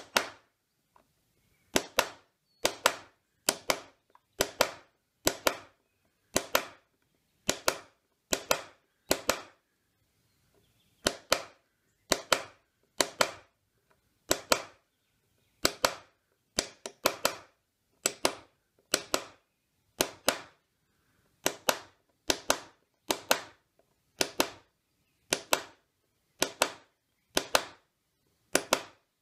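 A metal background punch struck in sharp, steady blows, about one a second with a brief pause around ten seconds in, stippling the recessed background of a carved wooden strapwork panel.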